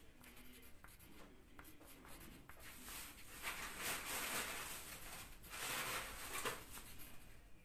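Faint rustling and scratching of a hand-held sheet of paper, with two longer, louder stretches about three and about five and a half seconds in.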